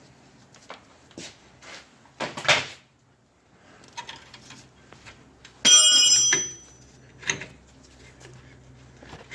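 Metal parts clinking and knocking as a truck shock's lower mounting bolt is taken out by hand, with a louder clatter about two and a half seconds in. About six seconds in a metal piece rings out sharply for over half a second.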